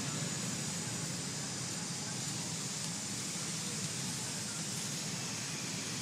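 Steady outdoor background noise: an even hiss with a low rumble underneath, with no distinct calls or knocks.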